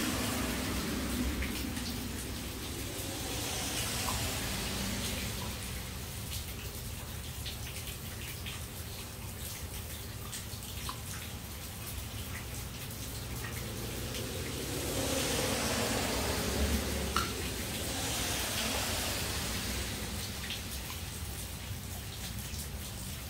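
Water running and splashing in a steady hiss that swells louder three times, with scattered small ticks and drips.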